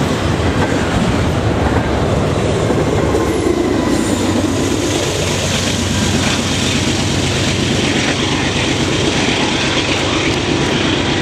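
Freight train passing close by: double-stack well cars' wheels running over the rails, then the rear pushing GE C44-9W diesel locomotive goes by about halfway through. Its engine hum carries on under the wheel noise as it draws away.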